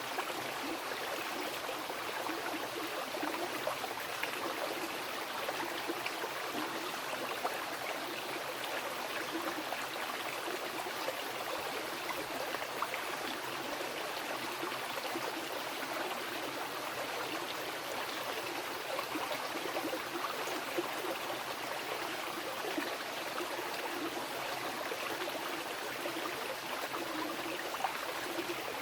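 A fast mountain river rushing and splashing over rocks, a steady, dense flow with small splashes and gurgles throughout.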